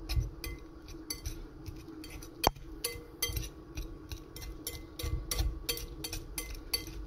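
Metal wire whisk stirring attiéké (grainy cassava couscous) in a glass bowl: irregular clinks and light scraping of the wires against the glass, several a second, with one sharper clink about two and a half seconds in.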